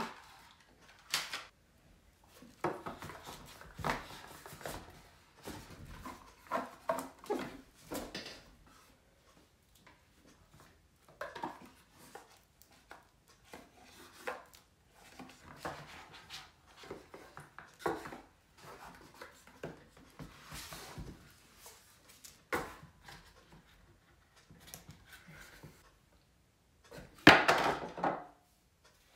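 Cardboard board-game pieces handled on a tabletop: boxes, cards and a rulebook picked up, shuffled and set down in scattered taps and paper rustles. A louder rustle and knock comes near the end.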